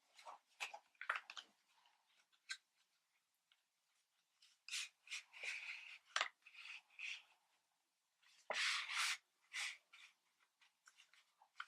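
Card stock being handled and pressed into place: short, scattered paper rustles and rubs with a few light taps, in separate bursts with pauses between.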